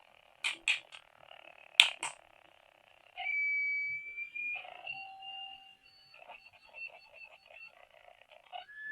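A few sharp plastic clicks, then electronic sound effects from a battery-powered toy's tiny speaker: held beeping tones that jump in pitch, and a quick pulsing stretch.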